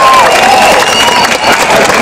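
A crowd applauding and cheering, with steady clapping. One long held cheer breaks off just after the start, and a few voices call out over the clapping.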